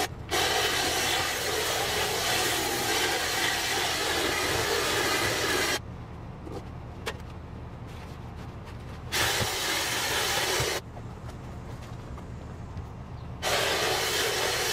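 Gas backpack leaf blower (Echo PB-9010T) running at full throttle with a loud rushing blast. It drops back to idle twice, about 6 seconds in and again about 11 seconds in, each time leaving only the low engine hum, and then throttles up again.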